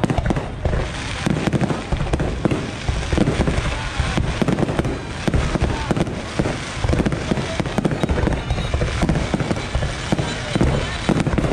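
Fireworks going off in a dense, continuous barrage of bangs and crackles, one pop hard on the next.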